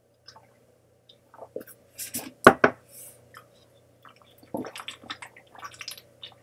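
A person drinking water in gulps, with short wet clicks and knocks of mouth and drinking vessel, two louder knocks about two and a half seconds in, and a run of small ticks near the end while drinking from a plastic bottle.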